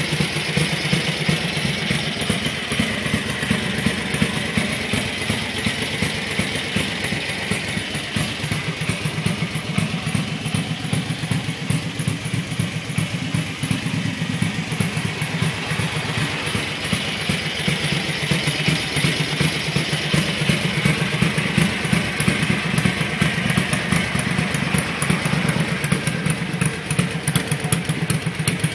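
1983 Ducati 900 Mike Hailwood Replica's air-cooled 90-degree V-twin engine idling steadily.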